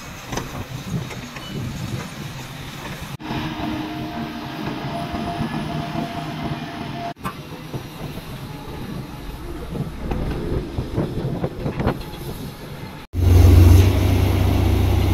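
Heavy earthmoving machinery running, with engine rumble and metallic clanking and rattling, in several short clips cut together; about 13 seconds in the sound jumps to a much louder, steady low engine drone.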